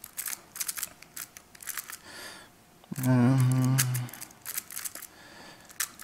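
A Rubik's cube being turned quickly by hand: a rapid run of plastic clicks and clacks as its layers snap round, while the corner-edge pairs of the first two layers are put in. About halfway through there is a short hum of a man's voice, lasting about a second.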